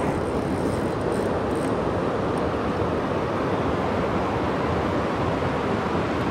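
Steady rush of a shallow river flowing over rocks, an even, unbroken wash of water noise.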